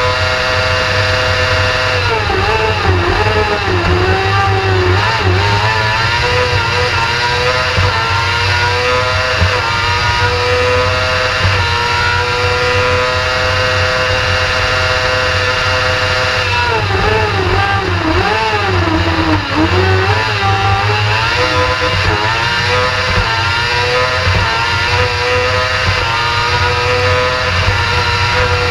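Kartcross's 600 cc motorcycle engine at full throttle, heard on board: revs held high and climbing through the gears, and twice dipping and wavering as the driver lifts off and changes down for a bend.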